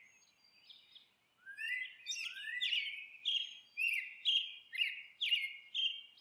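A songbird chirping: faint scattered notes at first, then from about a second and a half in a quick run of loud, sharp chirps, about two a second, each starting with a rising slur.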